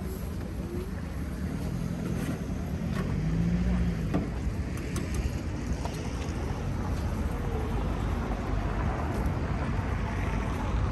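Outdoor city street ambience: a steady low rumble of wind on the microphone and traffic, slowly growing louder, with faint voices and a few light clicks.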